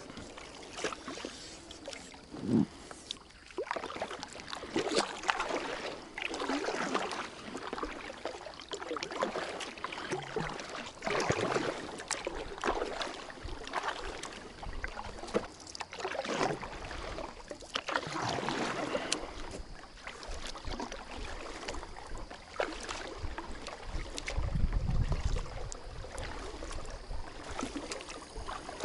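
Double-bladed paddle dipping into the water and splashing stroke after stroke, about every second or two, as an inflatable boat is paddled along. A single dull knock about two and a half seconds in, and a short low rumble near the end.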